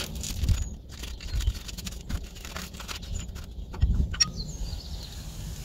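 Paper and plastic wrapping rustling and crinkling as glass stove-door panels are unwrapped and handled, with a sharper crackle about four seconds in.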